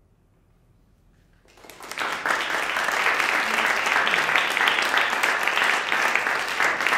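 About a second and a half of near silence, then an audience breaks into applause that keeps going steadily.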